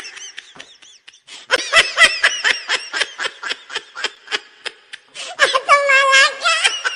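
High-pitched comic laughter sound effect: a fast run of short 'ha' bursts, about five or six a second, ending in a long, wavering squeal of a laugh near the end.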